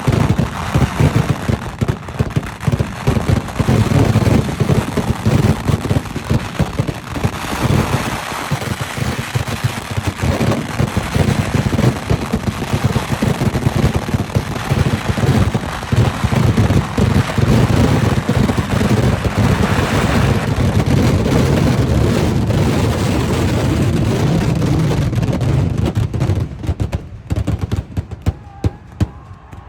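Kerala festival fireworks (vedikkettu) going off in a dense, rapid barrage of explosions, so close together they merge into a continuous rumbling roll. Near the end the barrage thins out to a few separate bangs.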